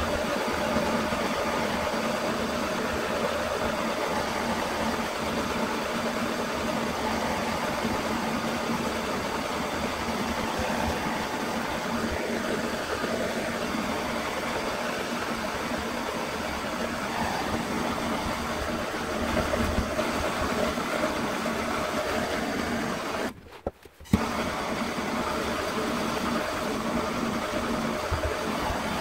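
Hand-held gas blowtorch burning with a steady hiss as its flame scorches an oak handle for a burnt finish. The sound drops out briefly for under a second about 23 seconds in, then resumes.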